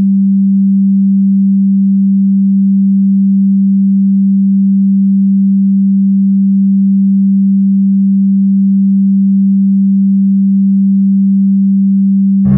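A steady low pure sine tone, a single unchanging pitch around 190 Hz, held at a constant level: a generated frequency tone of the kind used in 'energy' or frequency-healing audio.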